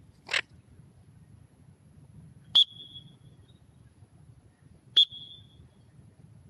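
A parrot's wings flutter briefly as it takes off from a hand. Then come two short, sharp, high chirps, each ending in a brief whistle and about two and a half seconds apart.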